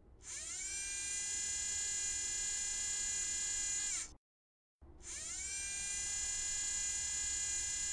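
Whine of the Curiosity rover's small electric mast motor turning. It spins up with a rising pitch and holds a steady high whine, then winds down with a falling pitch and cuts off about four seconds in. After a brief silence it spins up again and holds.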